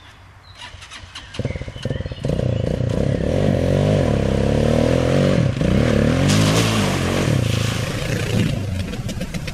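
Eagle Rush 250 quad's engine revving up and down repeatedly under the throttle. It is faint at first and comes in loud about a second and a half in.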